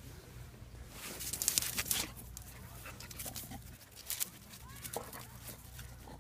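Puppy sniffing hard with its nose pushed into a gap between rocks: a quick run of sniffs about a second in, then scattered sniffs and a couple of short whines.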